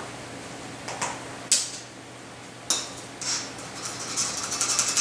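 Kitchen containers and utensils being handled while dry ingredients go into a mixing bowl: a few separate knocks, then a fast, even rattling about three seconds in.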